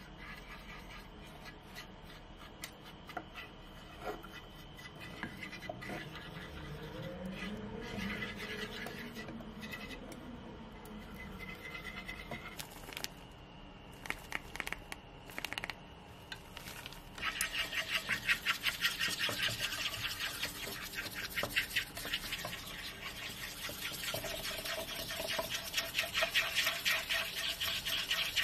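Wooden chopstick stirring melting sugar in a small nonstick frying pan, with light scattered taps and scrapes. From about 17 s in it turns into fast, rhythmic scraping against the pan as the sugar is whipped into dalgona foam.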